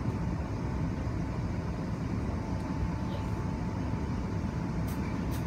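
Electric train running, heard from inside the passenger car: a steady rumble of wheels on track with a faint steady whine, and two short clicks near the end.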